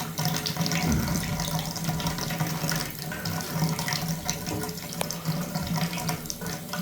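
Shower water running steadily because the old shower valve fails to shut off, with a sharp click about five seconds in.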